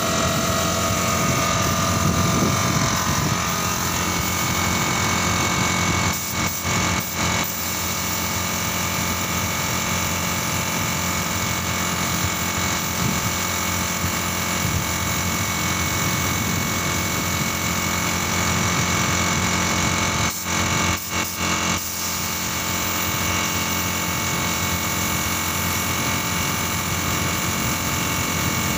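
Gravity-feed air spray gun hissing steadily as compressed air atomises paint onto a cabinet. The hiss drops out briefly twice.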